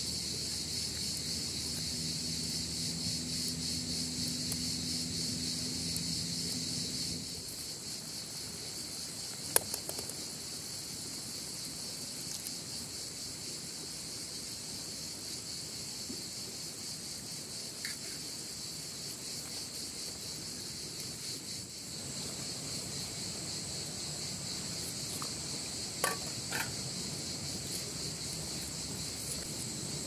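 Insects chirring in a dense, steady high-pitched chorus. A faint low hum runs under it for the first few seconds, and a few sharp clicks stand out, the loudest about ten seconds in.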